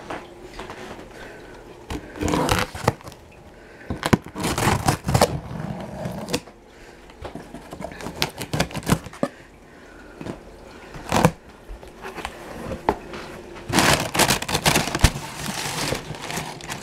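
A knife blade scraping and slitting the packing tape on a cardboard shipping box, then the cardboard flaps being pulled open, in irregular scraping and crackling bursts. Crumpled packing paper crinkles near the end.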